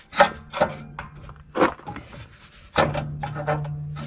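A cut steel patch knocking and scraping against a steel chassis frame crossmember as it is handled and set in place: several sharp knocks, over a steady low hum that grows stronger near the end.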